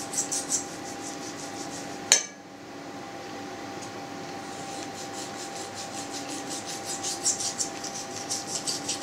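Knife sawing back and forth through a roast pork joint on a plate, a quick series of scraping strokes, with one sharp click about two seconds in.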